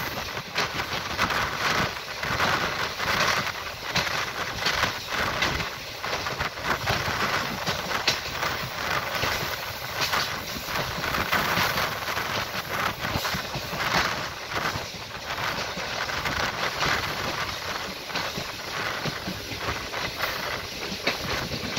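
Passenger train running on the track, heard from aboard: a steady rush of running noise broken by frequent short clicks and rattles from the wheels and coach.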